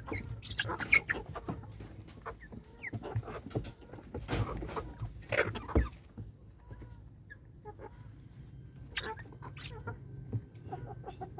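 Chickens clucking, many short irregular calls that come thickly for the first half and thin out after.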